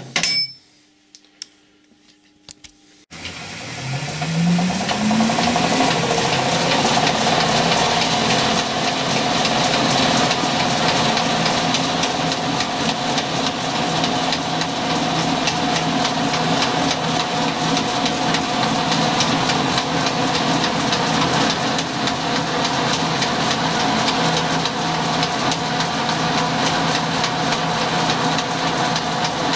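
A Colchester lathe starts up about three seconds in, its motor and spindle rising in pitch as they come up to speed, then running steadily. Over it is a dense, steady rattling as a home-made clamp-type knurling tool presses its wheels into a spinning brass workpiece.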